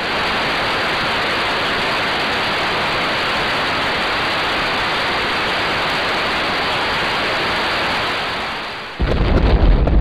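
Television static hiss, a steady even rush of noise. About a second before the end it drops away and loud music with heavy bass and drum hits cuts in.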